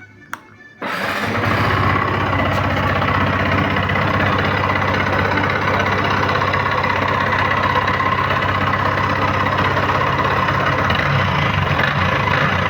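Yamaha MT-15's 155 cc single-cylinder engine starting about a second in and then idling steadily. The engine makes a loud noise, which the owner presents as a problem on this low-mileage bike.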